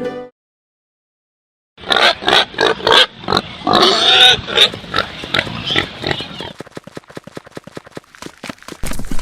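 Pigs grunting and squealing, starting about two seconds in, trailing off into a quick run of short grunts.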